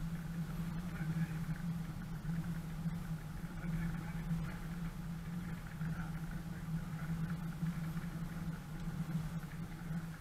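Off-road 4x4's engine running steadily at low revs with an even low drone as the vehicle creeps along a dirt track.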